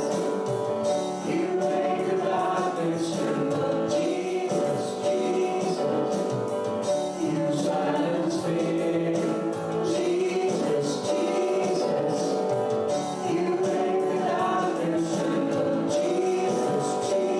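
Gospel worship song: voices singing over band accompaniment with a steady percussion beat.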